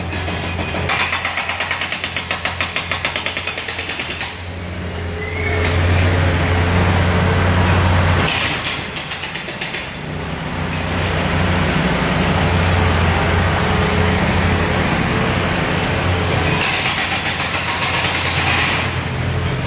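Construction machinery at work: a steady low engine drone, with two stretches of fast, even hammering, once near the start and again about halfway through.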